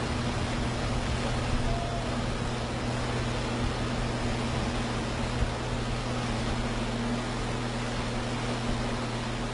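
A tractor-trailer tanker truck's diesel engine running with a steady low drone as it pushes through deep floodwater, under a constant rush of churned water from its bow wave.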